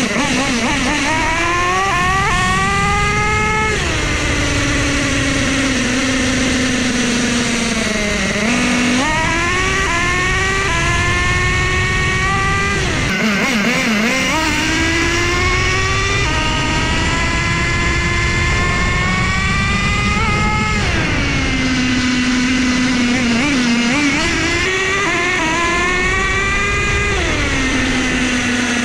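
Kyosho USA-1 Nitro monster truck's two-stroke nitro glow engine running hard. Its pitch climbs under throttle and drops sharply several times as the 3-speed transmission changes gear, with steadier, lower-pitched running in between.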